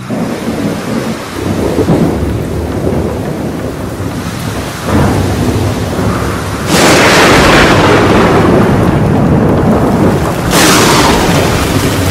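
Tropical thunderstorm: heavy rain falling steadily under rolling thunder that swells in waves. Two loud claps of thunder come about two-thirds of the way in and again near the end, each trailing off into a long rumble.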